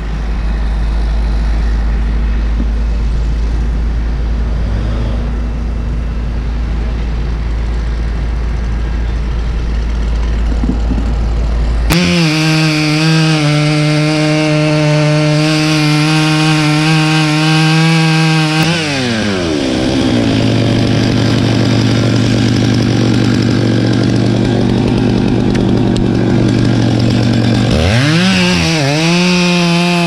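A low steady rumble, then about twelve seconds in a Stihl two-stroke chainsaw cuts in at high revs with a steady whine. Partway through, its pitch drops sharply and holds lower as it bogs into the trunk. Near the end the pitch rises and wavers as it revs back up.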